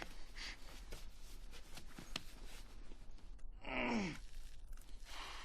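A climber breathing hard with effort, with a couple of faint taps around two seconds in, then a falling groan of strain about four seconds in.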